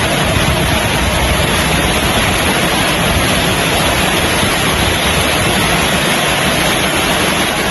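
Heavy rain falling: a loud, steady, even rushing hiss with a low rumble underneath.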